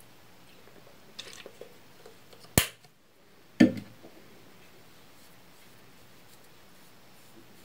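Small handling noises from a toner bottle: light rustling, then a sharp plastic click and, about a second later, a duller knock.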